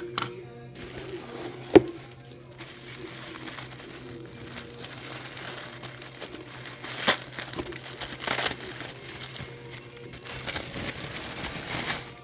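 Packaging crinkling as individually wrapped cookie cutters and embossers are unwrapped, with a few sharp clicks, the loudest about two seconds in. Quiet background music runs underneath.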